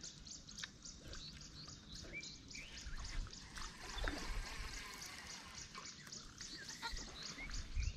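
A steady, rapid high chirping, about six pulses a second, typical of an insect, with a few short bird chirps. Around the middle comes a brief rushing whirr as a baitcasting rod is cast.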